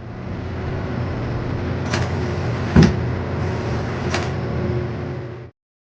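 Steady rumbling noise with three sharp knocks, the middle one a heavier thud, cutting off abruptly about five and a half seconds in.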